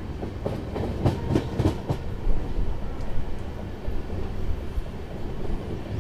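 Indian Railways sleeper coach running at speed, heard from its open doorway: a steady rumble of wheels on rails, with a quick run of clacks about a second in as the wheels cross rail joints.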